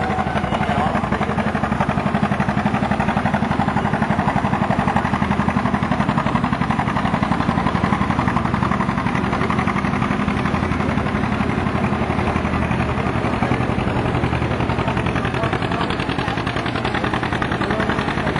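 Farm tractor engine running hard under full load as it pulls a weight-transfer sled: a loud, steady engine sound with rapid firing pulses.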